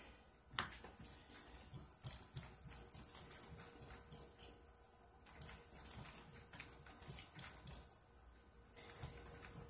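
A wire whisk stirring thick hot-process soap paste in a ceramic crock-pot insert: faint, rapid, irregular clicks and scrapes of the whisk working through the paste and against the pot.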